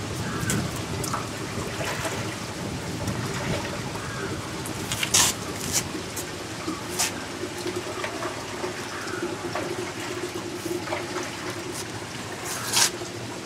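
Rubber latex being scooped from a bucket with a plastic mug and poured into metal sheet trays, with splashing and trickling. A few sharp knocks of the mug against the bucket or trays, the loudest about five seconds in and near the end.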